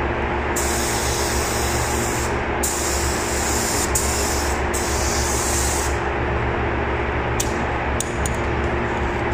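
Air-fed paint spray gun spraying primer in about four bursts of hiss, each one to two seconds long, as the trigger is pulled and released, over a steady low hum.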